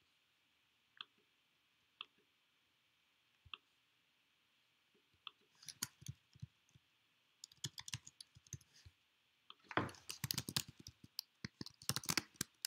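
Three single clicks about a second apart, then typing on a computer keyboard from about five seconds in, in quick runs of keystrokes that grow denser and louder near the end.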